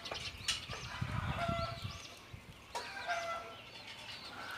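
Chickens: one-day-old chicks cheeping in short, high, arched peeps over the calls and clucking of hens, with a couple of sharp knocks.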